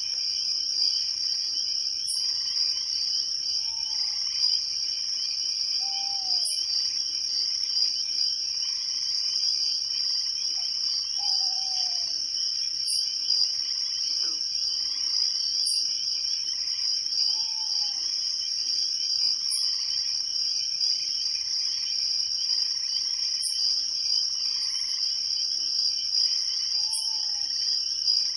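Night chorus of crickets: a steady, high-pitched trill, with short higher chirps about every two seconds and a few brief, lower falling calls scattered through it.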